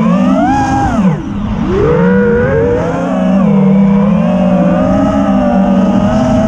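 Quadcopter racing drone's brushless motors whining from the onboard camera, their pitch swooping up and down with the throttle: a sharp drop about a second and a half in, then back up and holding with slow swells. Gusty wind on the microphone adds a low rumble underneath.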